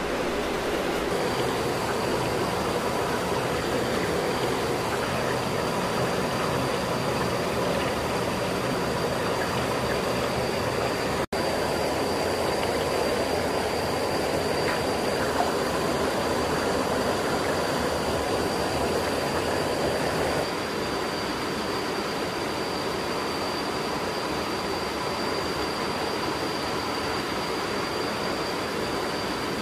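Steady rush of water running over the rocks of a shallow stream, with a thin, steady high whine above it. The sound cuts out for an instant near the middle and gets a little quieter about two-thirds of the way through.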